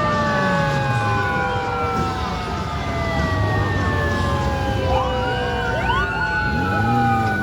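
Sirens of several Japanese police motorcycles wailing over one another, their pitches sliding slowly down, with short rising sweeps partway through. The motorcycles' engines rev and ease off underneath.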